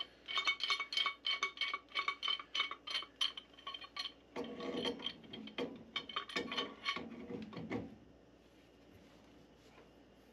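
Steel pipe wrench clinking and scraping on black iron pipe and fittings as it is worked onto the joint to check that it is tight. A quick run of ringing metallic clinks gives way to heavier knocks and scraping, and it stops about eight seconds in.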